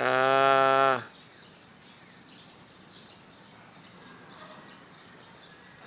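A steady, shrill chorus of insects sounding without a break. For about the first second, a man's voice holds one drawn-out syllable over it.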